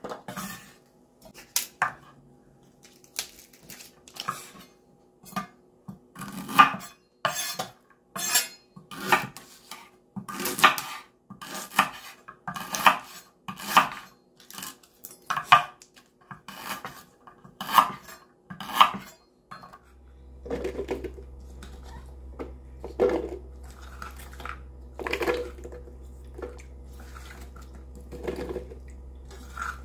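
Knife chopping onion and lemongrass on a wooden cutting board, in sharp, uneven strokes about one or two a second. About twenty seconds in the chopping stops and a steady low hum sets in, with a few soft knocks as the pieces are dropped into a plastic food-processor bowl.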